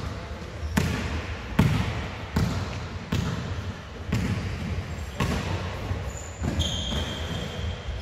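Basketball being bounced on a sports hall floor in an even rhythm, roughly one bounce every three-quarters of a second. A high, steady squeaking tone starts near the end.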